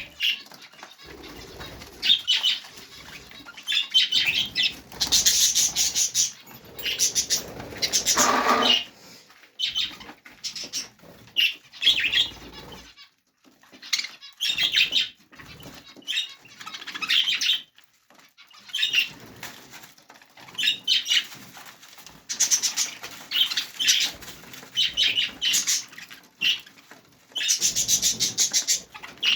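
Budgerigars chattering and chirping in irregular bursts, mixed with the flutter of wings flapping.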